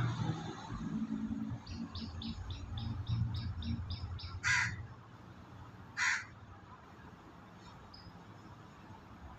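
A crow cawing twice, two harsh calls about a second and a half apart near the middle. Before the caws there is a quick run of short high notes over a low hum.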